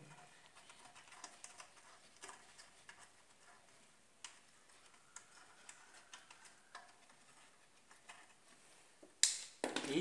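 Faint, scattered light clicks and taps from handling the homemade mini concrete mixer, with no motor running. Near the end comes a sudden loud noise as a hand takes hold of the rusty steel mixer drum.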